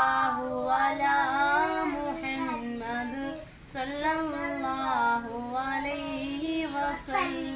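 A young girl singing unaccompanied in two long phrases of drawn-out, wavering notes, with a short breath between them about three and a half seconds in.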